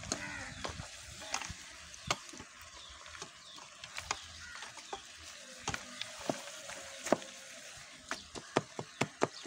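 Wooden spoon stirring chunks of beef and tomato in a metal cooking pot, knocking and scraping against the pot, over a steady sizzle of the stew frying. The knocks come quicker, several a second, near the end.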